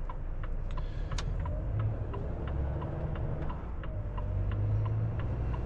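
Turn-signal indicator ticking at about three ticks a second inside a Volvo FH truck cab, over the steady low rumble of the diesel engine and road noise as the truck changes lanes.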